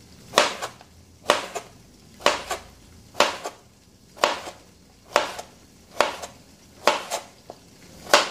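Kitchen knife slicing a round zucchini into thin half-moon slices on a cutting board: a sharp knock of the blade hitting the board about once a second, each often followed by a lighter second tap.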